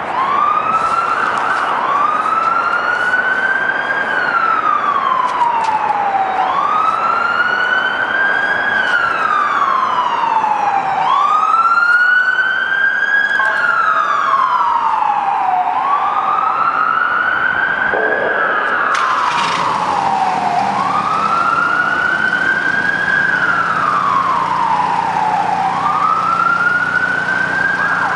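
An emergency vehicle's siren on its wail setting, each slow rise and fall lasting about four to five seconds; near the end it switches to a quick warble. A steady low hum joins about two-thirds of the way through.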